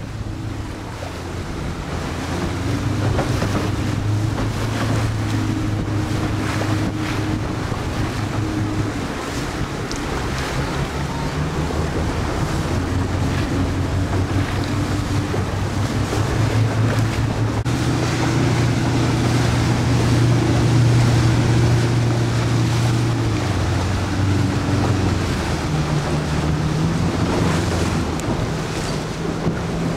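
A boat's motor running steadily, its pitch stepping up or down a few times, with wind buffeting the microphone and water noise.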